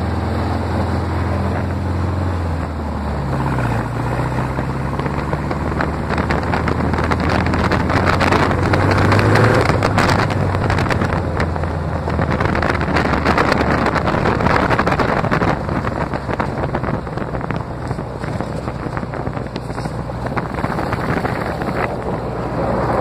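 Small off-road buggy's engine running as it drives, its note rising and falling with the throttle, with wind rushing over the microphone.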